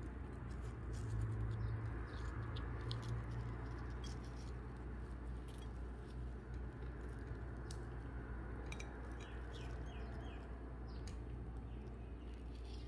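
Steady low hum with faint scattered clicks throughout, and a quick run of small chirps about nine seconds in.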